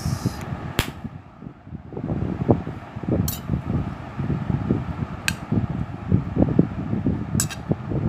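Steel spoon mixing macaroni on a plate: soft scraping and shuffling of the pasta, with four sharp clinks of the spoon against the plate.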